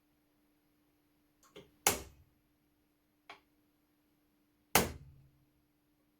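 A few sharp knocks and clicks from gun parts and tools being handled during disassembly of an old flintlock shotgun's trigger assembly. The loudest two come about two seconds and about five seconds in, and the second leaves a short low ring.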